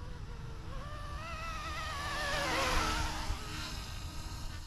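A small RC helicopter's brushless direct-drive main motor and rotor whining in fast forward flight as it passes close. The wavering whine swells with a rotor rush to its loudest a little under three seconds in, then drops in pitch and fades as it moves away. Wind rumbles on the microphone underneath.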